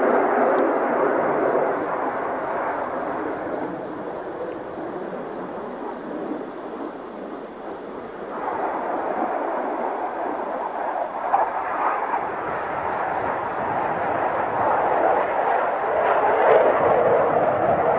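Jet noise from a Blue Angels F/A-18 Hornet's twin turbofans heard from far off: a steady rushing that eases a little, then swells again about halfway through and is loudest near the end. A rapid high-pitched pulsing, about three beats a second, runs beneath it.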